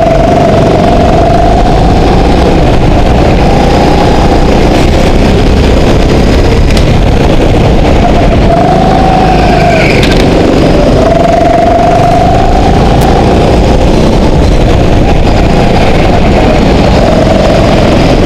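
Go-kart engine running hard on the track, loud throughout, its pitch rising on the straights and dropping back into the corners several times.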